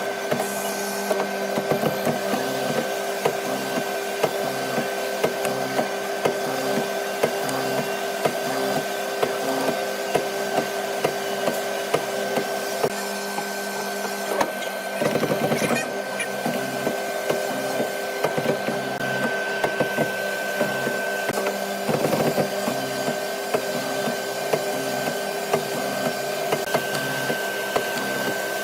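A woodworking machine running with a steady hum and frequent short clicks or knocks.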